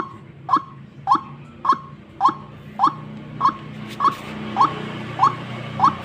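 White-breasted waterhen (ruak-ruak) lure call: a short, rising 'kruak' note repeated steadily, a little under twice a second.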